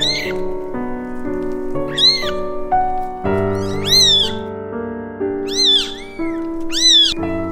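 Newborn kitten mewing: about five short, high cries that rise and fall, coming every second and a half to two seconds, over background music.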